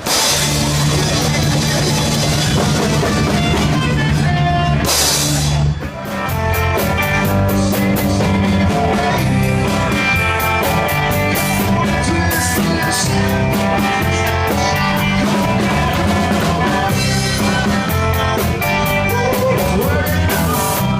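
Rock music with drum kit and guitar, loud and steady, with a brief dip about six seconds in where the song changes.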